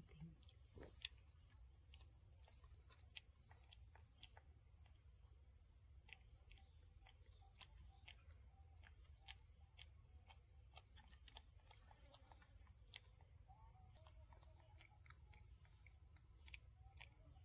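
Quiet outdoor ambience dominated by a steady, high-pitched insect drone, with faint scattered clicks.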